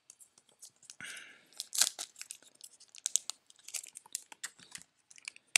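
Foil wrapper of a Mosaic football card pack crinkling and tearing as it is handled and opened by hand: a string of sharp, irregular crackles, loudest a little before two seconds in.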